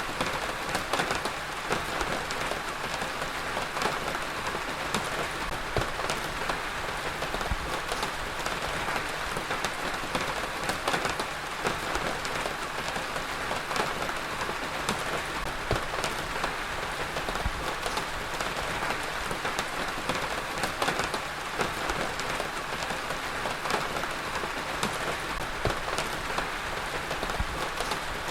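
Heavy rain falling steadily on a surface, a dense even hiss with many individual drops ticking through it.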